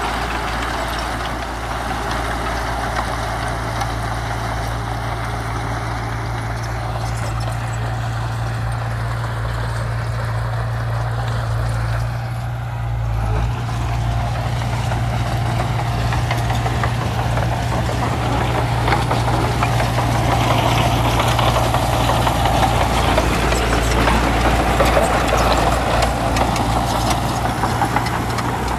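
Heavy diesel earthmoving machine engine running steadily with a low drone, dipping briefly about twelve seconds in and growing louder in the second half.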